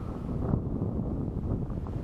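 Wind buffeting the microphone: a low, uneven rumble that grows a little louder about half a second in.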